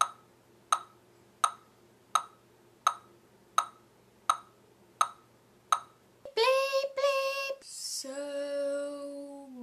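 A handheld metronome ticking steadily at about 80 beats a minute, nine even clicks. About six seconds in the ticking stops and a girl's voice sings long, held notes, with a short breathy hiss in between.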